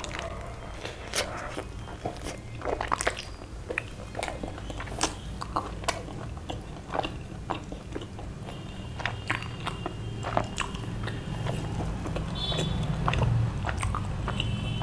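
Close-miked mouth sounds of someone biting and chewing a soft malai chaap roll: wet smacks and clicks at an uneven pace.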